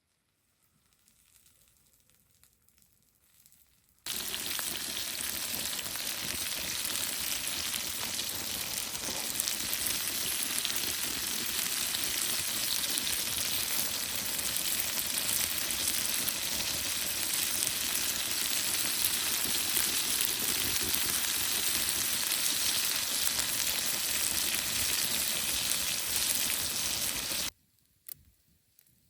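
Food sizzling as it fries in hot oil, a steady dense hiss that cuts in suddenly about four seconds in and stops suddenly near the end.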